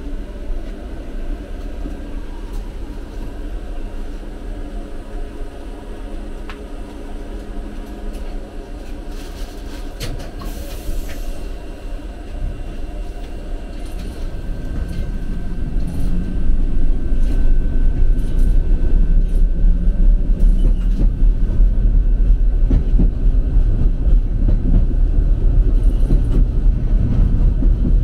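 Tram running on its rails, heard from inside the passenger car: a steady low rumble of wheels and running gear with scattered small clicks and rattles. The rumble grows clearly louder about halfway through and stays louder.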